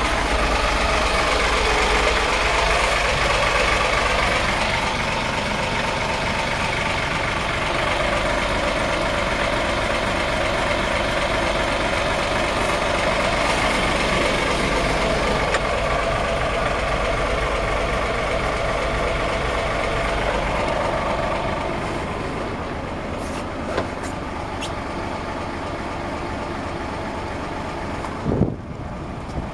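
A fishing boat's engine idling steadily, slightly quieter in the last third, with a sharp knock near the end.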